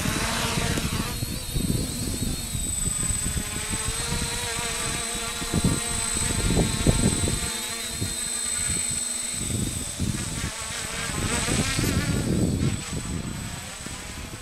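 Quadcopter's electric motors and propellers buzzing as it lifts off and climbs, the pitch wavering up and down as the throttle changes. The buzz fades near the end as the drone flies away.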